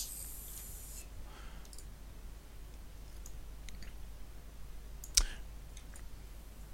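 Computer mouse clicks at a desk: a few faint clicks and one sharp, loud click about five seconds in.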